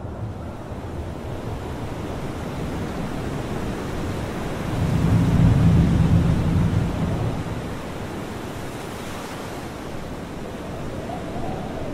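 Sea surf: waves breaking and washing ashore, a steady rush that swells loudest about five seconds in and eases off after seven.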